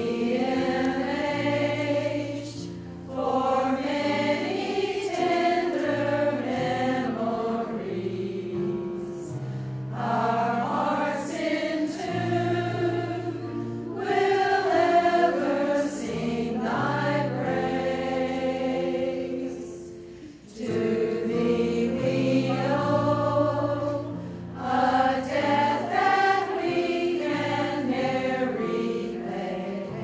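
A women's choir singing together, with held low accompaniment notes beneath the voices and a short break between phrases about two-thirds of the way through.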